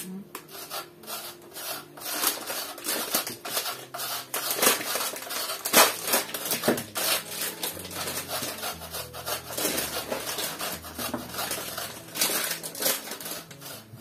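Cheese being grated on a small metal box grater: quick, uneven rasping strokes mixed with sharp clicks and knocks of the grater against the bowl, two louder knocks near the middle.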